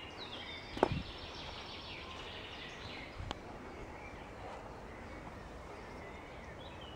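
Forest ambience with small birds singing short chirping phrases, most busily in the first second, over a steady hiss. Two dull thumps break in, about a second in and again near the middle.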